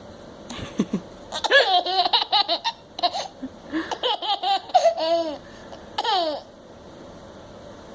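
Baby laughing: a quick run of high-pitched giggles from about a second and a half in, ending with one longer falling squeal around six seconds.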